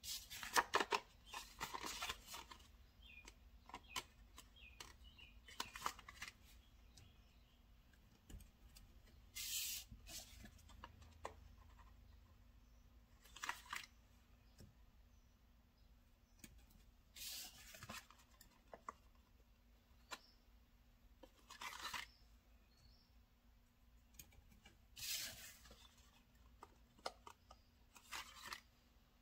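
Paper planner stickers being peeled off their sheet and pressed onto the pages with tweezers: a short, quiet peeling or rustling rasp every three or four seconds, with light clicks and taps between.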